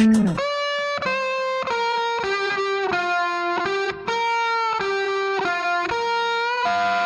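Music: a clean electric guitar playing a melodic run of single notes, about two a second, over a quiet break; the bass and drums come back in just after it ends.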